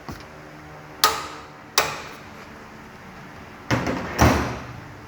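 A torque wrench tightening the front strut mount bolts to the specified torque: two sharp metallic clicks about a second apart, then a heavier clatter of metal knocks about four seconds in.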